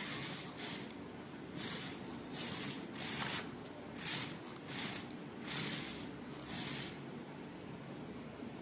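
Irregular short rustling and scraping handling noises, a burst every second or so.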